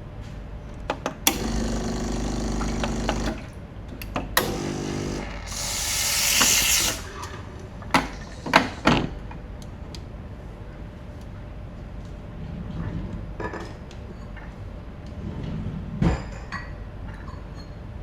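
Coffee being made: a small machine motor hums for about two seconds, a shorter hum follows, then a rising hiss, and near the middle three sharp clinks of cups or utensils.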